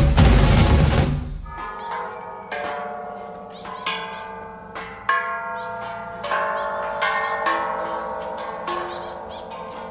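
Loud music with drums that cuts off about a second in; then a row of large hanging metal Thai temple bells struck one after another with a stick, about ten strikes, each bell ringing on under the next.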